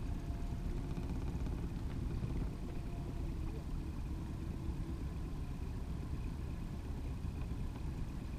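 Boat's outboard motor running steadily at trolling speed: a constant low rumble with a faint steady whine above it.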